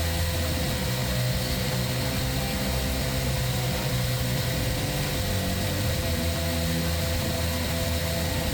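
Knife-grinding belt grinder running steadily on a fine 2500-grit belt with a constant whine, as a blade is worked on it. The bump from the belt's seam has been taken out, so it runs smoothly.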